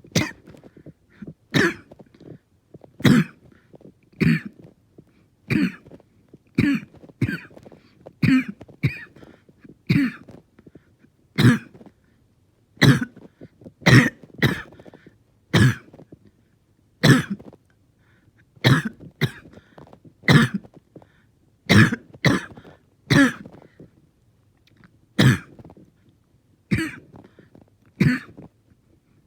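A person in a bad, prolonged coughing fit: dozens of harsh coughs about a second apart, often in quick pairs, with brief catches of breath between.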